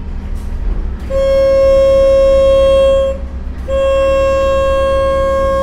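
Boat horn sounding two long steady blasts, one starting about a second in and a second after a short break, the second still going at the end, over the low rumble of the boat's engine.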